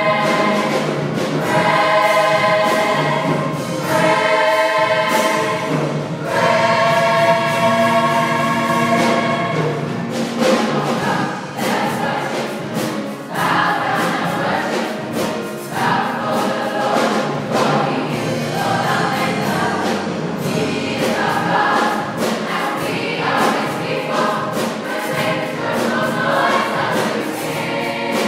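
School gospel choir singing in a large, echoing church: long held chords for the first ten seconds or so, then a busier, moving passage.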